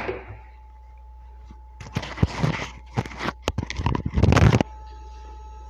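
Handling clicks and plastic rattling from a network patch cable, its RJ45 connectors and tools being worked by hand, in a quick run of sharp clicks that stops suddenly near the end.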